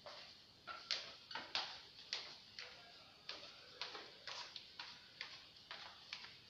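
Footsteps going down tiled stairs: sharp clicks at about two a second.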